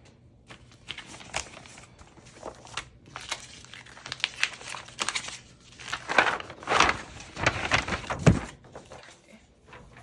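Packaging crinkling and rustling as small items are handled and unwrapped. It comes in irregular crackles that grow louder and busier in the second half, with a dull thump near the end.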